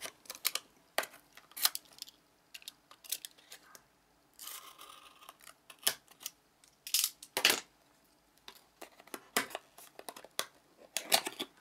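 Handling noise from a small product box being opened by hand: scattered clicks, taps and scrapes, with a brief rustling scrape about four and a half seconds in and a few sharper knocks after it.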